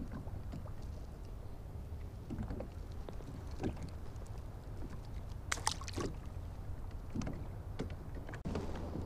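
Small waves lapping against a plastic kayak hull over a low steady rumble, with scattered light knocks and taps, the sharpest pair about five and a half and six seconds in.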